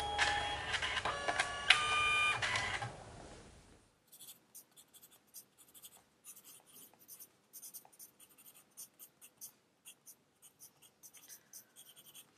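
Background music fades out in the first few seconds. Then a pencil scratches across notebook paper in short, irregular strokes, writing by hand.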